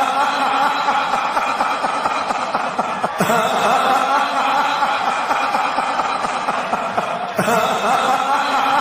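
The Fiend's attack sound effect: a distorted, sinister chuckling laugh over a held, droning backdrop. The effect loops, starting over about three seconds in and again about seven and a half seconds in.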